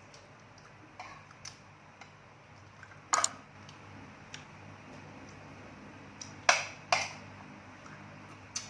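Dishes and utensils clinking and knocking: a handful of sharp clinks, the loudest about three seconds in and two more close together near the end.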